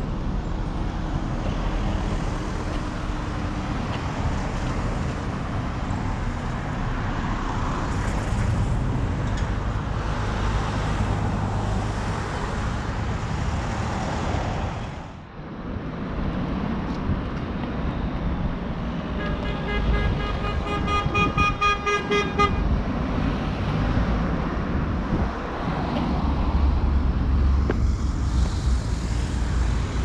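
Street traffic: cars driving past on a road, a continuous rumble and tyre noise. A little past the middle, a steady pitched tone with overtones sounds for about three seconds.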